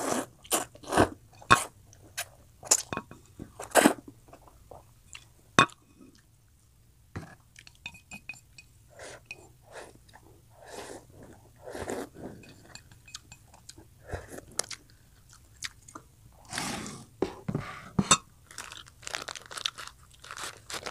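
Close-miked eating sounds of a mouthful of instant noodles: a quick run of loud slurps over the first few seconds, then softer wet chewing, and another burst of loud slurping about three-quarters of the way through.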